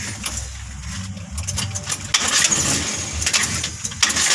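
Carburetted petrol engine running with its valve cover off, the exposed rocker arms and valves adding clicking over the steady engine hum. It runs rough with a misfire, which the mechanic traces to a stuck hydraulic lifter and pushrod on one valve.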